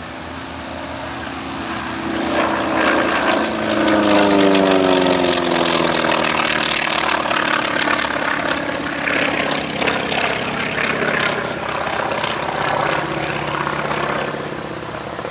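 North American T-28S Fennec's supercharged Wright R-1820 nine-cylinder radial engine and propeller passing overhead. The engine tone drops in pitch as it goes by, loudest about four seconds in, then keeps running steadily as the plane climbs away in an aerobatic manoeuvre.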